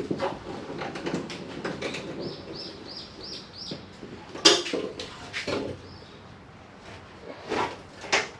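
Hands working a car's rear hatch glass and its rubber seal out of the frame: scattered knocks, scrapes and rubbing, with a sharp knock about four and a half seconds in and two more near the end. A run of five short high chirps comes about two to four seconds in.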